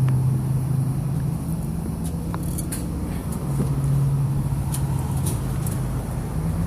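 An engine running steadily at idle, a low hum, with a few light clicks and taps over it.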